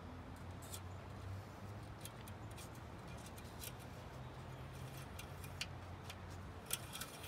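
Light clicks and ticks of a personal watercraft's engine dipstick being wiped and pushed back into its tube to check the oil level. A handful are scattered over several seconds, the loudest near the end, over a faint low hum.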